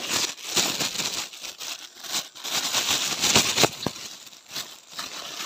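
Black plastic carrier bag crinkling and rustling in irregular bursts as it is handled, with a freshly caught fish put into it; loudest a little past halfway.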